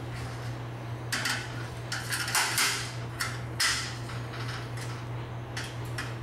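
Flathead screwdriver prying a plastic lampholder bracket out of the sheet-metal channel of a fluorescent light fixture: a series of irregular scrapes, clicks and rattles of metal and plastic, over a steady low hum.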